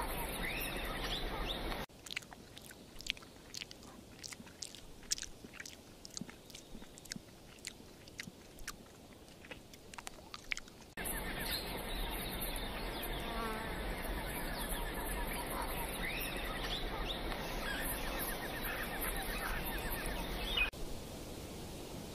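Insect ambience, a dense steady buzz and chirr with faint chirps, broken by a quieter stretch from about two to eleven seconds in that holds scattered sharp clicks.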